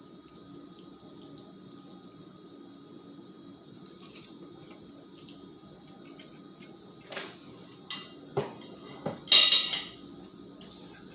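Cutlery on a plate: a few light clinks about seven seconds in, then a louder short scrape about nine seconds in, over a steady low room hum.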